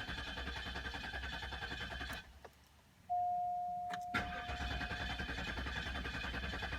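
A 2005 Cadillac DeVille's Northstar V8 being cranked over by the starter with the accelerator held to the floor, a reset attempt for a bad misfire. The cranking stops a little over two seconds in and starts again about a second and a half later. Between the two cranks, a single steady chime tone sounds and fades.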